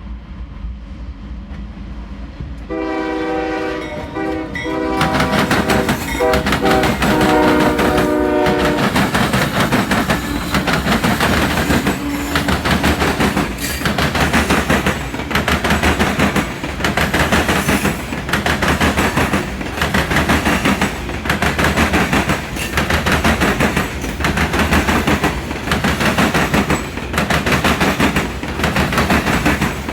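CSX freight locomotive's air horn sounding about three seconds in and holding for some six seconds with a short break. Then the train passes close by: a loud rumble with a steady rhythm of wheel clacks over the rail joints, a little more than one a second.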